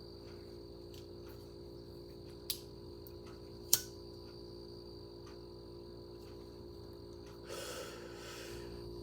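Two sharp clicks about a second and a quarter apart, over a steady hum with faint regular ticking, then a short rush of noise near the end.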